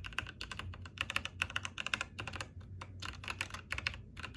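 Typing on an all-plastic Zifriend 60% mechanical keyboard with red linear switches: a quick, irregular run of clacky keystrokes.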